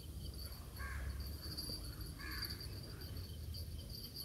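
A bird gives two short, harsh calls, about a second apart, over a steady high-pitched insect drone.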